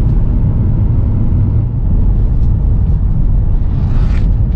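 Camper van driving, a steady low rumble of engine and road noise.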